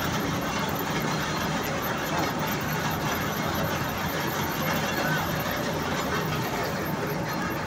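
Asphalt drum mix plant machinery running, a steady noise, as its conveyor belt carries aggregate away from a feed bin chute that had jammed with material.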